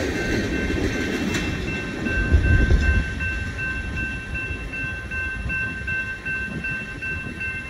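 Railroad grade-crossing bell ringing in quick, even dings while the low rumble of a departing freight train of rock hopper cars fades away.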